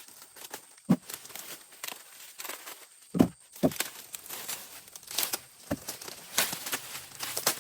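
Irregular rustling and crackling, like dry material being crumpled or torn, with sharp knocks about one second in and twice between three and four seconds in.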